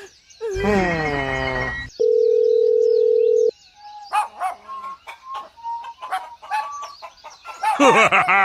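A run of edited sound effects. First comes a sound that falls in pitch. Then a steady electronic beep plays for about a second and a half and cuts off suddenly. After that come scattered short, chirping calls.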